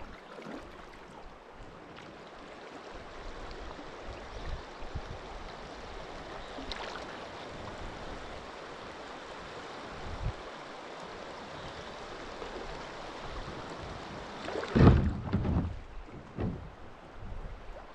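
Steady rushing of river water, with a louder low thump about fifteen seconds in.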